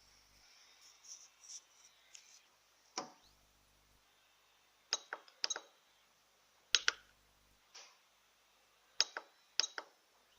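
A series of sharp clicks and light clinks, several coming in quick pairs, with brief stretches of a low electrical hum in between.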